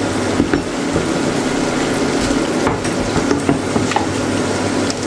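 Metal ladle stirring bánh xèo batter in a bowl: a wet, sloshing scrape with scattered clicks of the ladle against the bowl.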